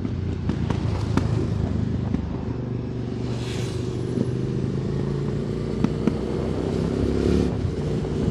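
QJ Motor SVT 650X motorcycle with an Arrow Racetech slip-on exhaust, its parallel-twin engine running steadily under way. The engine note changes near the end.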